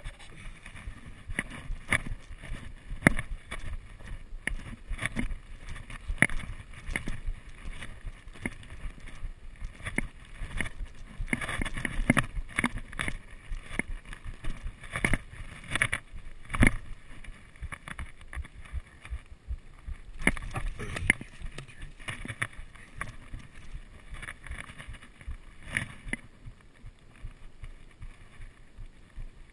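Irregular knocks, clicks and rustles of handling and movement picked up by a body-worn camera as an angler walks and handles a freshly caught rainbow trout, over a low rumble of wind on the microphone.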